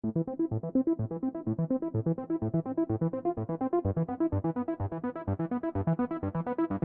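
Background electronic music: a quick, even run of synthesizer keyboard notes over a steady beat.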